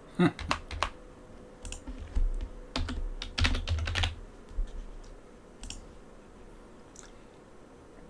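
Computer keyboard typing: quick bursts of keystrokes, densest about three and a half seconds in, then fewer, scattered taps.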